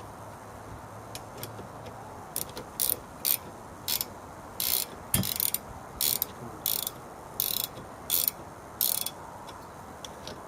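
Ratchet wrench clicking in short strokes, about ten bursts a little over half a second apart, as a nut or bolt is wound off by hand.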